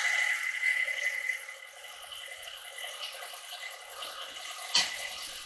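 Stand mixer running with its dough hook turning flour and sourdough starter into bread dough in a stainless steel bowl, a steady whine that becomes quieter about a second and a half in. A single sharp click near the end.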